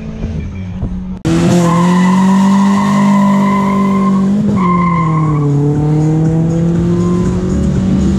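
Chevrolet Celta hatchback's engine held at high revs with its tyres squealing in a skid. The sound is loud and steady, with a brief break about four and a half seconds in. It is preceded by about a second of quieter engine hum.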